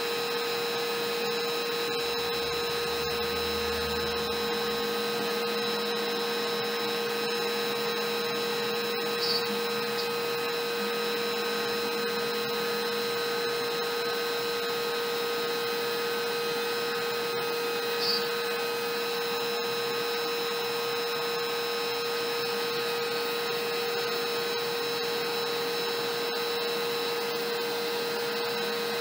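Router on a LowRider CNC v3, set to its lowest dial speed, spinning a single-flute upcut bit as it cuts through MDF: a steady whine and rush. Two brief sharp blips stand out, about nine and eighteen seconds in.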